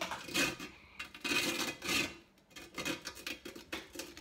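A utensil scraping and rubbing bread crumbs across a metal pizza pan in a series of strokes, the loudest in the first two seconds, weaker ones after.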